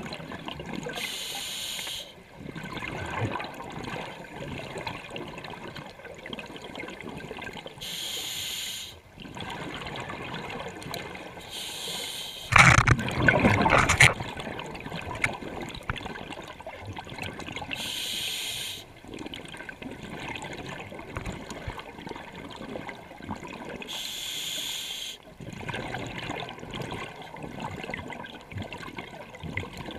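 Scuba diver breathing through a regulator underwater: a short inhalation hiss about every six seconds, each followed by a long bubbling exhale. A louder rush of bubbles comes a little before the middle.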